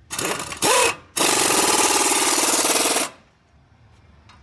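A pneumatic wrench driving a bolt on the front brake assembly. It runs in two short bursts, then steadily for about two seconds with a rapid, even hammering rattle, and stops sharply.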